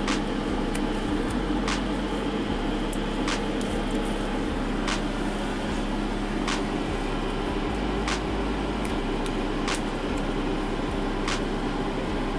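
A fan running with a steady hum and a low, even tone. A faint sharp click repeats at an even pace, about once every second and a half.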